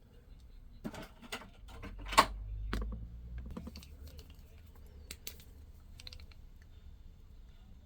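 Light, scattered clicks and taps of a die-cast toy Corvette being handled and turned over in the hands, with one sharper click a little over two seconds in.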